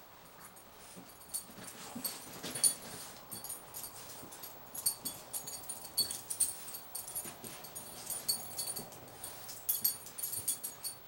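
Boston terrier and English bulldog play-wrestling, making a string of short, sharp dog noises, the loudest about two and a half seconds in.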